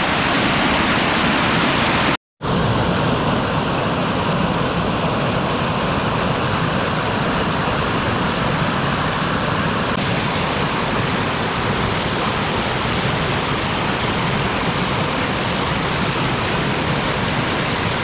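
Steady rush of water from the natural waterfalls of the Holtemme at the Steinerne Renne, running strong after the snowmelt season. The sound cuts out completely for a split second about two seconds in.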